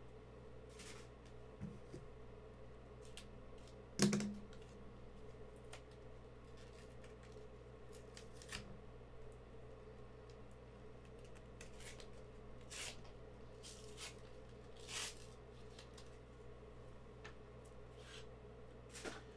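Trading card packs and cards being handled and opened: scattered short crinkles of plastic wrapper and card rustles, with one sharper knock about four seconds in, over a faint steady hum.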